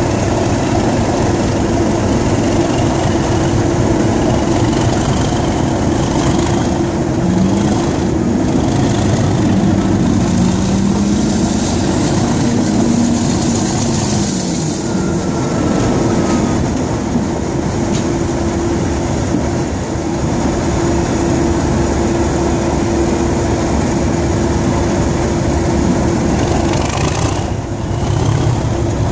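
Class 37 diesel locomotive's English Electric 12CSVT V12 engine working under power as the locomotive gets under way and runs along the line: a loud steady drone with a few whining glides in pitch from the turbocharger.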